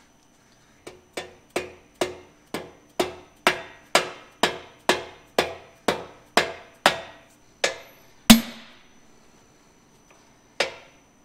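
A mallet taps steel cylinder repair sleeves into the bored cylinders of an AMC 258 straight-six block, starting their roughly 0.003 in press fit. It gives a quick, even run of about seventeen ringing taps, about two a second. Then come two heavier single hammer blows on a driver, the first the loudest.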